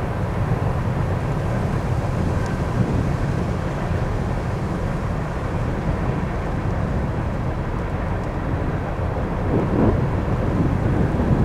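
Freight train of empty coal hopper cars rolling past, its wheels on the rails making a steady low rumble.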